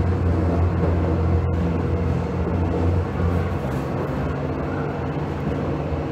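Steady low hum inside the cab of a first-generation Düwag B100S Stadtbahn car standing still with its equipment running; it eases slightly about three seconds in.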